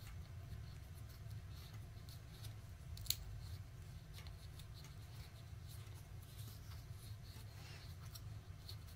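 Faint clicks and scrapes of a small plastic valve-core tool being twisted on a bicycle tyre's valve stem, with one sharper click about three seconds in, over a low steady hum.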